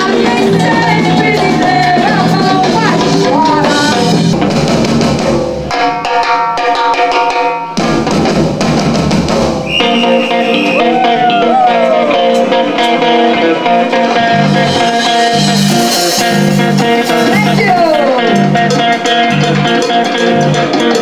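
Brazilian band music with electric guitar and drum kit over a steady low pulse. The bass drops out for about two seconds partway through, and the music changes abruptly a couple of times.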